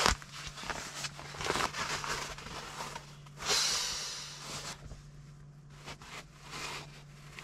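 Nylon rustling and crinkling as an inflatable camping pillow and its stuff sack are pulled apart and handled, with one longer rushing sound about three and a half seconds in. A steady low hum runs underneath.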